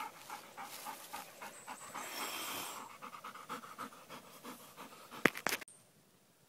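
Golden retriever panting rapidly, about three breaths a second. A few sharp clicks about five seconds in are the loudest sound.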